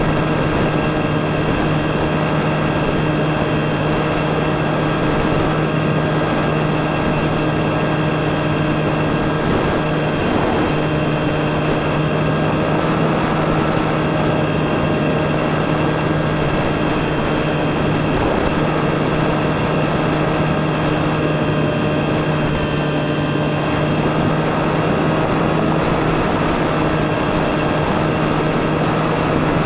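Onboard sound of a Skywalker FPV plane's electric motor and propeller running at a steady cruise throttle: a constant pitched hum that does not change, with wind rushing past the airframe.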